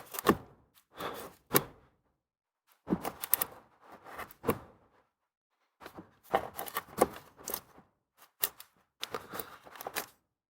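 Irregular clicks, crackles and light knocks of hands clearing dry tree leaves and debris out of a car's blower motor housing, in scattered short bursts with pauses between them.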